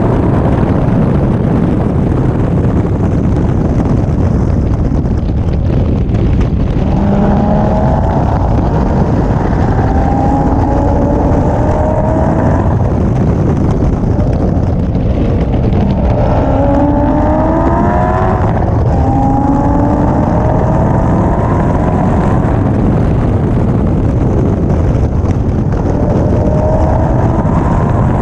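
Onboard sound of a vehicle at track speed: engine note climbing in pitch and dropping back several times as it accelerates through the gears, with a lull in the middle, over heavy wind noise on the microphone.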